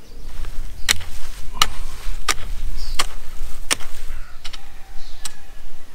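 Garden hoe chopping into the soil while hilling up a row of potatoes: five sharp strikes about two-thirds of a second apart, then two softer ones near the end.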